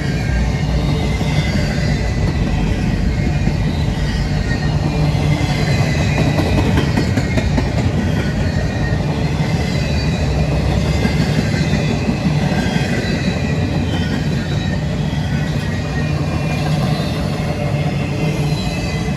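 CSX freight train rolling past: a steady, loud rumble of wheels on rail, with a faint thin high-pitched wheel squeal running through it.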